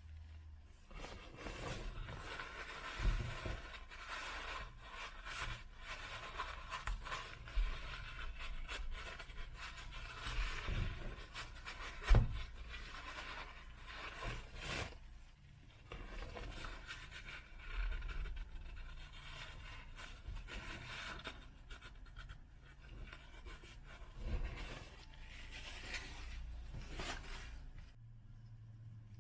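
Rubbing and scraping handling noises of work on a car, with scattered light clicks and knocks; one sharp knock about twelve seconds in.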